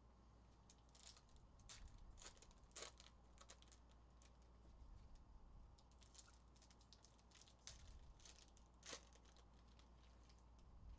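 Foil trading-card pack wrappers being torn open and crinkled by hand: a faint run of short crackles and rips, sharpest about three seconds in and again near nine seconds.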